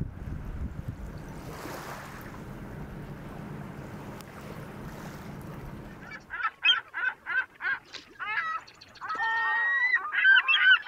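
Wind buffeting the microphone over a low rumble, which stops about six seconds in and gives way to geese honking: first a run of short calls, then many overlapping calls from a flock.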